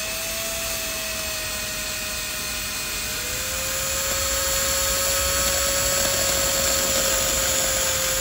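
Cordless drill turning a Time-Sert counterbore bit at slow speed, cutting the seat for the thread insert's flange into the aluminium face of a Subaru EJ25 engine block. The motor's steady whine drops a little in pitch about three seconds in as the bit takes load, and a scraping cutting noise grows after that.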